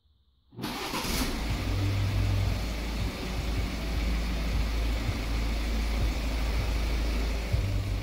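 BMW X3 F25 engine started by remote start, catching suddenly about half a second in and then running at a steady idle.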